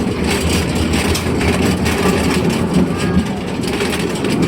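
Steady rumble and rail clatter of a small narrow-gauge forest-railway train under way behind the Amamiya No. 21 steam locomotive, heard from the riding carriage.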